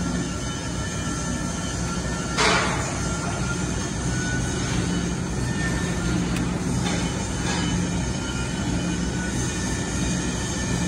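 Ribbon blender powder mixer running, its ribbon agitator turning through the powder in the trough: a steady mechanical hum and rumble. A brief louder rush of noise comes about two and a half seconds in.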